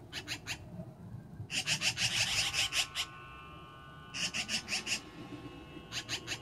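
Black-billed magpies giving harsh, rattling chatter calls in quick runs of notes: a short run at the start, a longer dense run about a second and a half in, another about four seconds in, and a brief one at the end. This is the scolding chatter magpies use when mobbing a cat.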